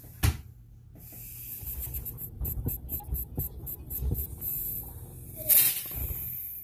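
A stopper is worked loose from a pressurised plastic bottle with a run of short rasping clicks, then comes out about five and a half seconds in with a brief loud rush of escaping air. This sudden release of pressure is what makes the cloud form inside the bottle.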